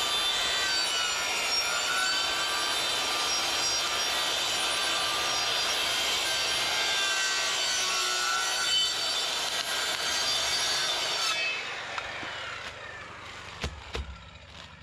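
Handheld power saw cutting through wooden wall sheathing, its motor whine wavering in pitch under load; it stops about eleven seconds in. A few sharp knocks follow near the end as the cut-out is worked loose.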